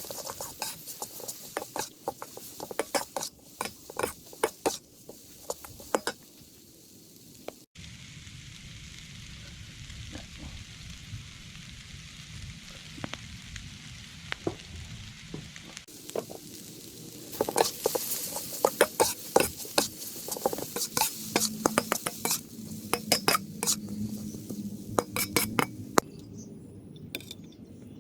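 Instant noodles stir-frying in a wok: a steady sizzle with a spatula scraping and clinking against the pan in quick strokes. The strokes come thick for the first several seconds, stop for about eight seconds in the middle, leaving only the sizzle, then come thick again.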